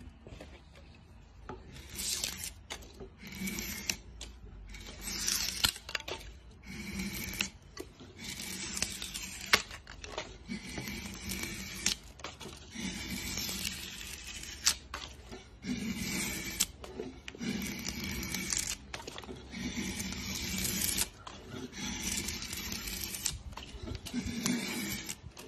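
Curved drawknife shaving a wooden board, hollowing it in a series of about a dozen pull strokes. Each stroke is a second or so of scraping hiss as the shaving peels off, with an occasional sharp click between strokes.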